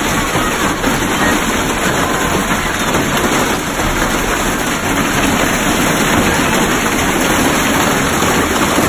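Hail pelting a school bus's roof and windows: a loud, steady, dense noise with no letup.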